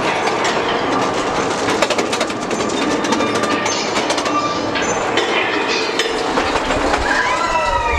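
Roller coaster mine-train car climbing a lift hill, its wheels and lift mechanism giving a rapid steady clicking over a running rumble. Near the end, as the train crests and picks up speed, riders start yelling and wind begins buffeting the microphone.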